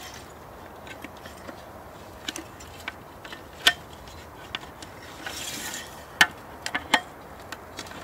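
Metal tube frame and slatted top of a folding camping table clicking and knocking as its parts are fitted together, irregular sharp clicks with a short rustle a little after halfway.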